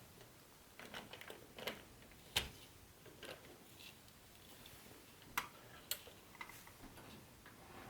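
Scattered light clicks and taps of small hard HO-scale model train pieces being handled. The sharpest clicks come about two and a half seconds in and again around five and a half to six seconds.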